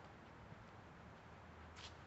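Near silence: faint steady background hiss, with one brief soft rustle near the end.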